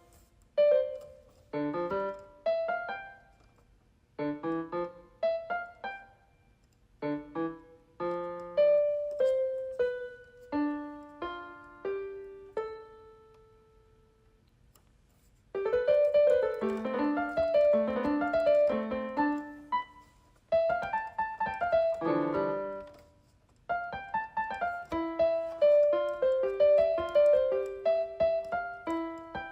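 Solo piano music: halting phrases of single notes and chords with short pauses between them, a break of about a second and a half midway, then fuller, busier playing in the second half.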